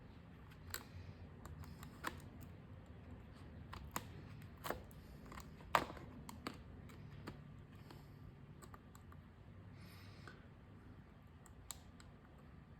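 Scattered light clicks and taps of fingers working a replacement battery's cable connector into its socket on a MacBook Air logic board, at irregular intervals, with the sharpest click a little before halfway.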